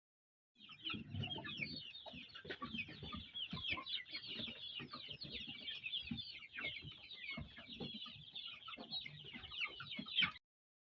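A flock of local chickens calling, a dense continuous chorus of short high peeps with scattered soft knocks underneath. It starts about half a second in and cuts off abruptly near the end.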